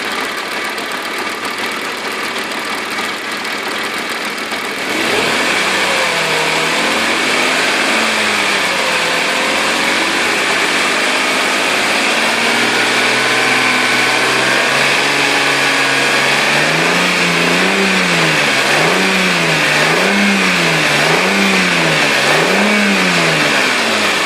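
Mercedes-Benz W210's 3.2-litre engine idling and then being revved, first in slow swells and then in about five quick blips in a row, with a knock the owner calls puzzling.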